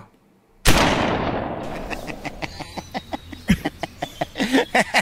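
A sudden loud bang about two-thirds of a second in, fading away over about a second, followed by a run of short sharp clicks and knocks, one stronger knock near the middle.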